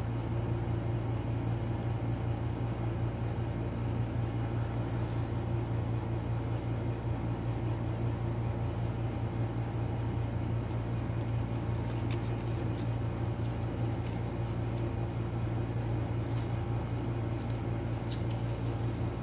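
Steady low machine hum in a small room, with a few faint light clicks and paper rustles in the second half as a small printed manual is handled and its pages flipped.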